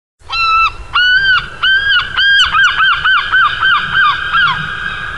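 Logo sound effect: a loud series of clean pitched tones, each rising and falling, four longer notes then a quicker run of about nine shorter ones, trailing off into a fading echo near the end.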